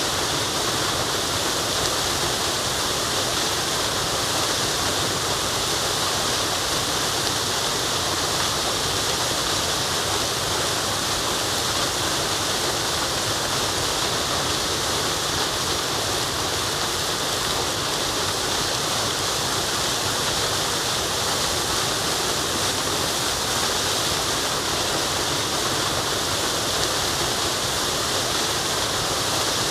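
Waterfall rushing: a steady, unchanging roar of falling water with a bright hiss on top.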